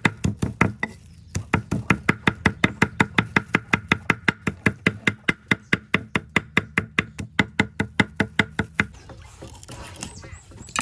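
Cleaver chopping rapidly on a wooden chopping block, mincing chillies and herbs: an even run of sharp knocks, about five a second, with a short break about a second in, stopping shortly before the end.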